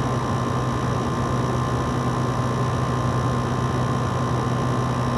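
LG LW6017 6,000 BTU window air conditioner running with its compressor on and the fan on medium: a steady hum with a constant rush of air, as the unit is cooling.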